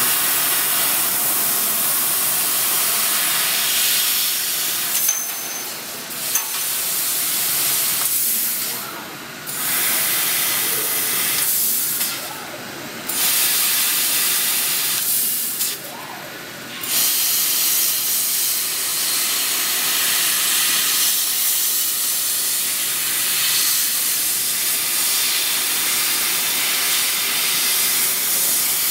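SZL1-1325M laser cutting machine cutting thin sheet metal: a steady hiss of assist gas and cutting at the nozzle. The hiss cuts out briefly three times, about nine, twelve and sixteen seconds in.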